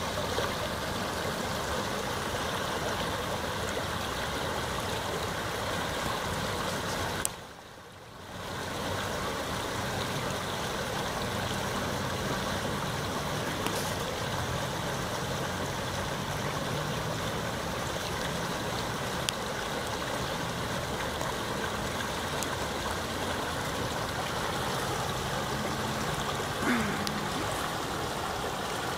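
Muddy floodwater of the swollen Oued Zegzel rushing steadily over its rocky bed. About seven seconds in, the sound cuts out abruptly for a second or so, then returns.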